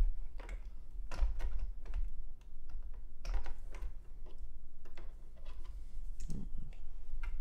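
Irregular clicks and rustles of sleeved power-supply cables and their plastic connectors being handled, routed and pushed into place on a motherboard, over a steady low hum.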